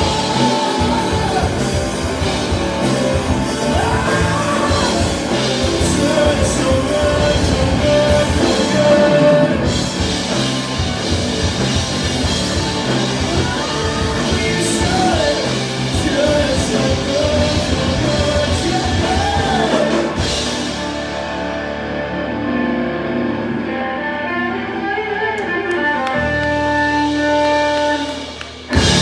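Rock music with drums, guitar and singing.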